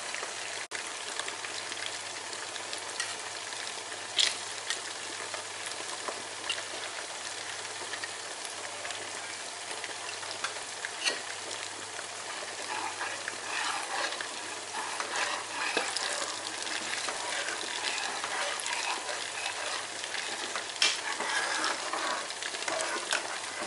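Red curry paste frying in coconut cream in a pan: a steady sizzle and crackle as the cream is fried until its oil separates. A metal spoon scrapes and taps the pan now and then, and the crackling grows busier in the second half.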